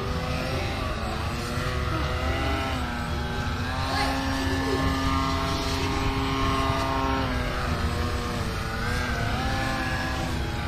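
Electric RC plane's brushless outrunner motor (Turnigy 900kv) and 11x6 propeller whining while the plane hovers nose-up, the pitch rising and falling as the throttle is worked, highest from about four to seven seconds in. Wind rumbles on the microphone underneath.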